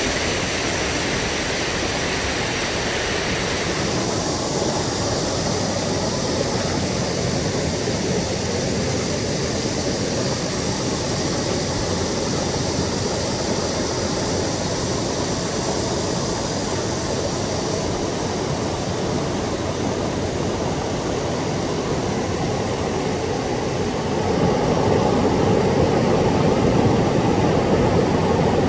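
Steady rush of water pouring over small rocky waterfalls into a shallow river. The sound changes about four seconds in and grows louder from about 24 seconds in.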